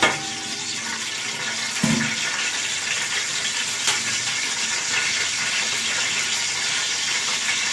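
Whole cardamom, cloves and cinnamon sizzling steadily in hot ghee in an aluminium pot, with one low knock about two seconds in.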